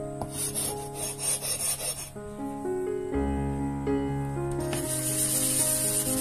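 An abrasive block scraped back and forth across a wet water stone, rounding over the stone's corner to keep it from chipping. Quick strokes in the first two seconds, then a steady gritty scraping from about five seconds in, with piano music underneath.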